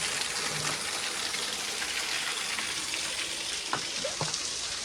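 Steady hiss of falling water from a small, partly iced-over waterfall, with a few faint clicks near the end.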